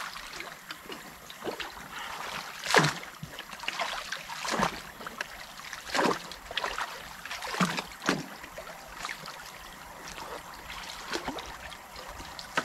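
Water splashing in a series of separate strokes, a second or two apart, over a steady trickle of creek water: debris being pulled out of a beaver dam.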